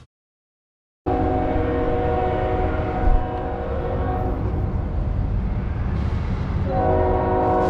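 Diesel freight locomotive's air horn sounding a long, steady multi-note chord over the rumble of the engines and train, blown for a road grade crossing. It starts about a second in after a short silence, and the horn gets louder near the end as the locomotive passes close.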